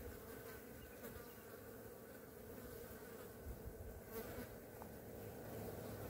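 Flies buzzing around a carcass, a faint, steady hum.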